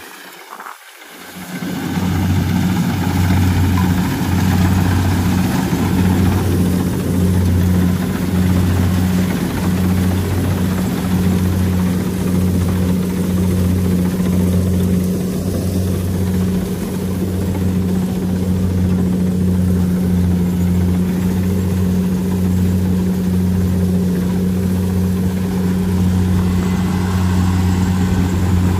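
A small engine comes in about two seconds in and runs loud and steady at one constant speed, with a slight pulsing.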